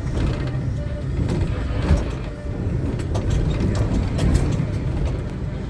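Inside a combi minibus: a steady low engine and road rumble, with scattered light clicks and knocks from the cabin.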